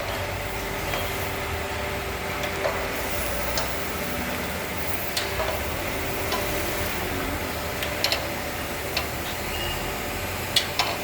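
Perfect PGH-60150AH hydraulic surface grinder running with a steady hum, with a few sharp clicks at irregular moments.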